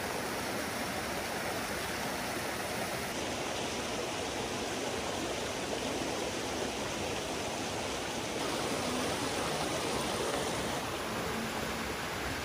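Shallow mountain stream rushing over rocks and small cascades: a steady, even noise of running water.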